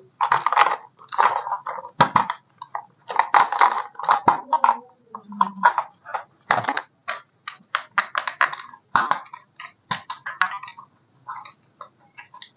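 Irregular run of short clatters and crackles, as of objects being handled and knocked together, thinning out near the end.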